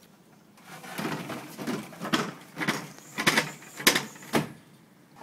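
Aluminium sliding door being shoved along its track in jerks, rollers and track scraping and squealing in a series of rough strokes that grow louder, the sharpest three near the end. The sign of worn or corroded rollers and track.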